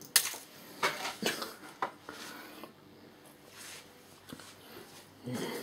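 Rummaging through household clutter: several short knocks and rustles of objects being picked up and moved, the loudest near the start.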